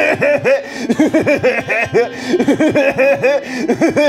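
A woman laughing hard, loud and high, in a quick run of rising-and-falling bursts of several a second.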